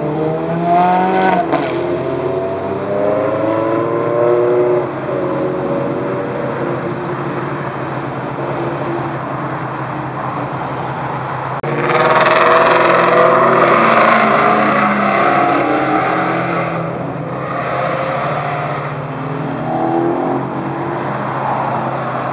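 Ferrari sports cars accelerating away from an intersection, engine notes rising in pitch as they rev up. The loudest is a hard full-throttle pull starting about twelve seconds in and lasting some four seconds, with a shorter burst soon after.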